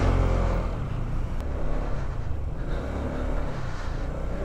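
Honda ADV scooter engine running steadily while riding, with wind rush over the microphone.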